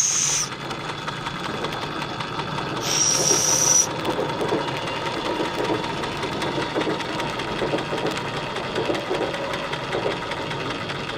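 Märklin 4122/11 vertical-boiler toy steam engine running with a steady, light mechanical clatter. Two short, high-pitched bursts of hissing steam come at the start and about three seconds in.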